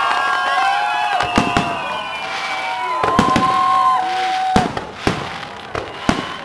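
Aerial fireworks display: a rapid series of sharp bangs from bursting shells, mixed with several long, high whistling tones that glide and hold. The bangs thin out and grow quieter in the second half.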